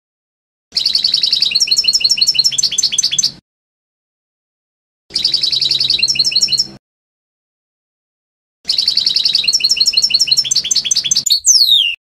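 European goldfinch song in three phrases separated by dead silence, each opening with a buzzy trill and running into a fast string of twittering notes; the last phrase ends with a quick falling whistle.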